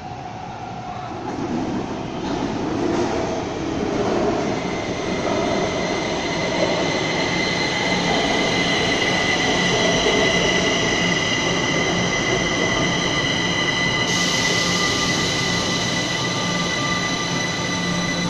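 Kaohsiung MRT Red Line electric train pulling into an elevated station. Its rumble builds as it approaches, then holds with several steady high whines as the cars run along the platform. A hiss joins about fourteen seconds in.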